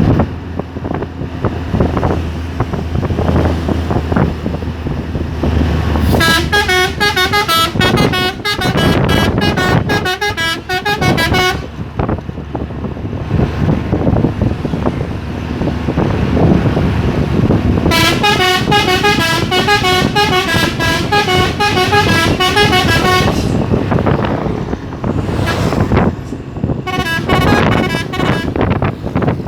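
Three-trumpet telolet air horn on a Hino truck playing quick, stepping multi-note melodies in three spells: about six seconds in, again about eighteen seconds in, and briefly near the end. Between spells the truck's engine and road noise run on.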